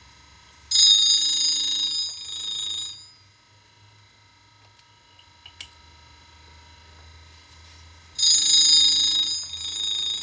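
Tool grinder's wheel grinding a tooth of an annular cutter, twice: each pass is a shrill, ringing squeal lasting about two seconds, the second starting about seven seconds after the first. Between passes the grinder runs with a faint steady whine.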